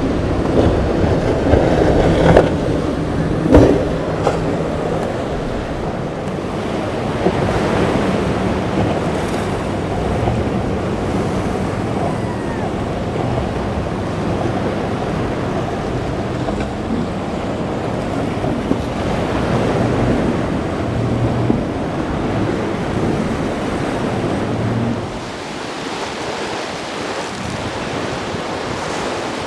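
Outboard motors running at speed over choppy inlet water, their low hum under the rush of waves, hull spray and wind buffeting the microphone. The sound is louder with a few heavy splashes in the first few seconds, then eases and thins out about 25 seconds in.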